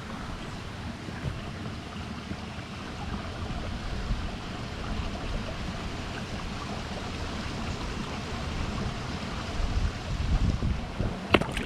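Wind on the microphone and moving water, with one sudden sharp splash near the end as a pirarucu (arapaima) strikes at the surface.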